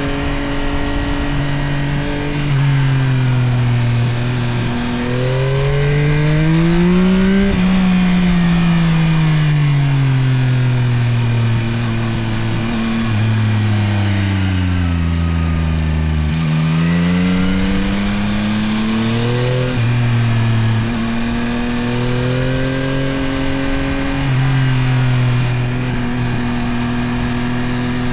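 Yamaha Tracer 9 GT+'s 890 cc CP3 inline-three engine under way on the road, heard from the rider's position. The revs climb, then fall away slowly for several seconds as the bike slows, then climb again and settle.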